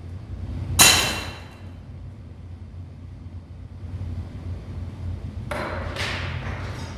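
A loud sharp bang about a second in, ringing away over half a second, then two weaker sharp knocks near the end, over a steady low hum.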